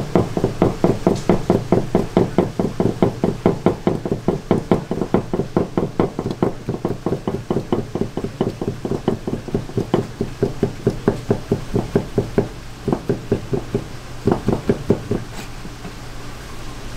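A kitchen knife striking a cutting board in quick, even strokes, about four a second, as raw seafood is sliced for sashimi. The chopping stops near the end.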